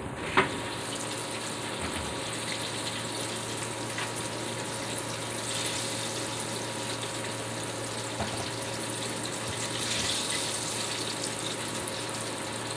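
Fish frying in hot oil in a pan: a steady sizzle, with a faint low hum underneath.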